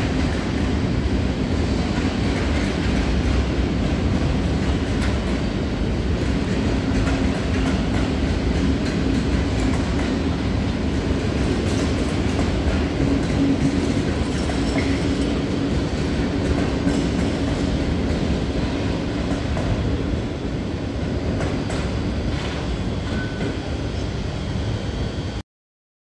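Intermodal freight train of wagons carrying lorry semi-trailers rolling past on the track, a steady rumble of wheels on rails. It cuts off suddenly near the end.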